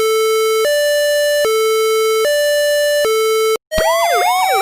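Fire engine two-tone siren, alternating between a high and a low note about every 0.8 seconds. It cuts off abruptly near the end, and after a short gap a different siren starts, with fast up-and-down sweeps over a slowly rising wail.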